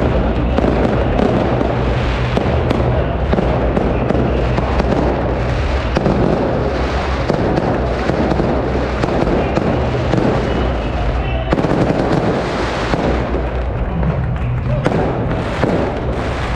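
Firecrackers going off in a rapid, continuous crackle, with crowd voices underneath.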